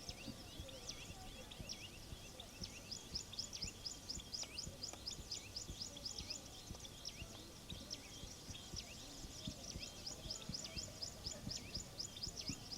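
Small birds chirping: a fast, continuous run of short, high, sharp notes, several a second.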